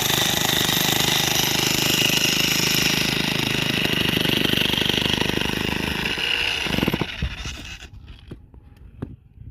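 Powered hand-held drilling machine running steadily and loudly, then winding down and stopping about seven seconds in, followed by a few small knocks.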